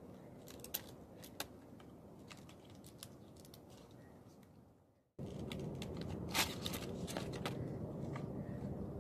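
Plastic packaging being handled and torn open to free a wired computer mouse, with crinkling and sharp crackles. About five seconds in the sound fades out and cuts abruptly to a louder background with more crinkling of the plastic.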